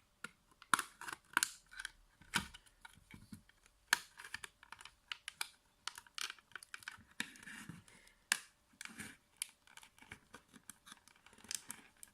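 Pocket knife prying apart a plastic external hard drive enclosure: irregular light clicks and short scrapes as the blade works along the seam and the snap-in tabs give way.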